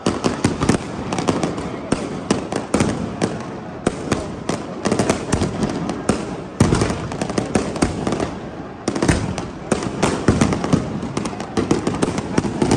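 Fireworks going off in a rapid, continuous barrage of bangs and crackles. Heavier booms come about six and a half and nine seconds in.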